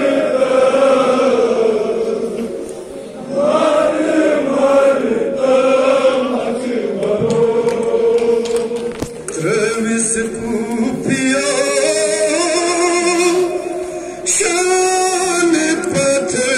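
Men's voices chanting a Kashmiri nowha, a Shia mourning lament, together, in long sung phrases with two short breaks between them.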